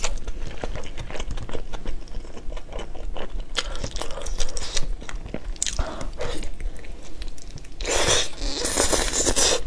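Close-up eating sounds: biting and chewing sticky braised meat in a thick glaze, with many small wet clicks and smacks. A louder stretch of biting noise starts about eight seconds in and lasts over a second.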